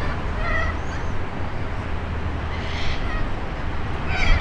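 City bus's diesel engine running as it turns the corner and pulls toward the listener, over a steady low traffic rumble. Short high-pitched chirping calls sound over it several times, the loudest near the end.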